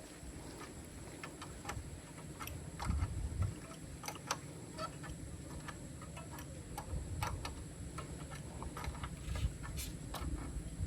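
Irregular light clicks and knocks from hands and tools working on a motorcycle wheel that has seized, with a few low rumbles.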